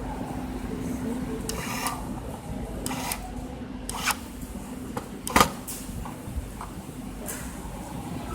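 Scattered sharp clicks and knocks of tools and small parts being handled while new temperature sensors are fitted, the loudest about five and a half seconds in, over a steady low hum.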